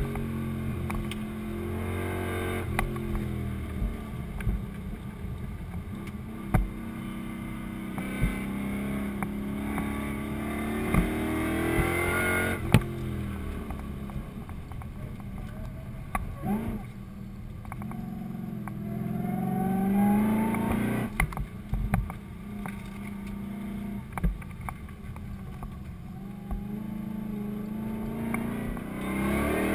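Supercharged V8 of a Holden VE Commodore heard from inside the cabin on a track lap. It revs up and falls away again and again as the car accelerates and slows between corners, with a few sharp knocks along the way.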